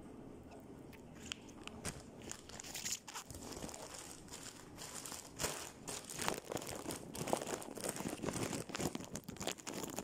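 Irregular rustling, crinkling and scraping with scattered light knocks, as someone cleans a small tiled bathroom close to the microphone, in a slight echo from the tiles.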